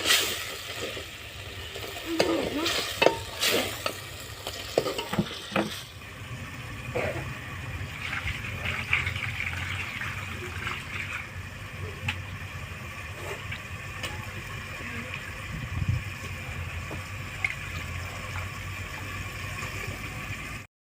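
Food frying and sizzling in a pan. A spoon stirs, knocking and scraping against the pan over the first few seconds, and then the sizzle goes on steadily.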